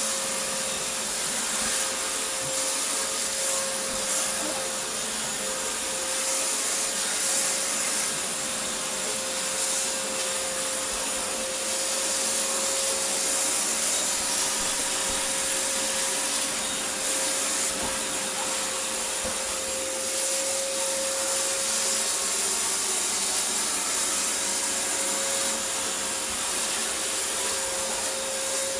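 Vax Floormate hard-floor cleaner running steadily as it is worked over laminate flooring: a constant motor whine with one steady pitched tone.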